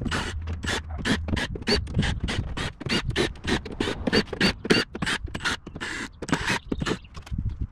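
Cordless drill-driver backing out the screws of a clear enclosure lid, heard as a rapid series of short, sharp bursts, about four a second.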